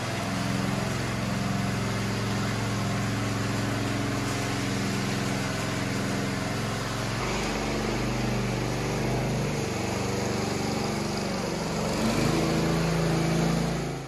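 Walk-behind power trowel's small gas engine running steadily as its rotating blades finish the fresh concrete slab, the engine note shifting a little part way through.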